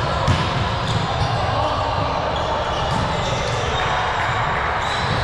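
A ball thudding on a hard gym floor now and then, over steady background chatter from players and onlookers.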